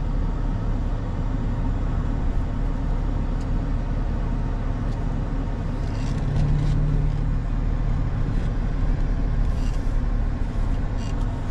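A car driving along a road: a steady engine and tyre rumble.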